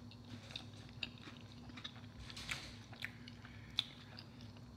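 Close-miked chewing of a cheesy cheeseburger slider: quiet, wet mouth clicks and smacks, scattered irregularly. The sharpest comes about three quarters of the way through.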